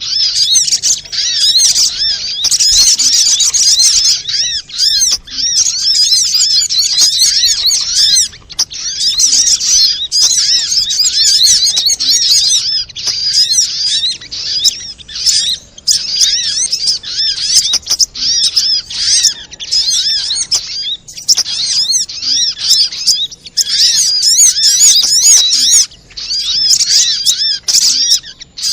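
Little spiderhunter (sogok ontong) calling: dense, rapid, high chirping of many short arched notes, going on almost without break apart from a few brief pauses.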